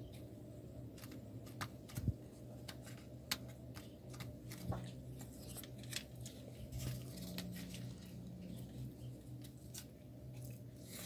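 Cardboard being handled and pressed together by hand: scattered light clicks, taps and scrapes at an uneven pace, over a faint steady low hum.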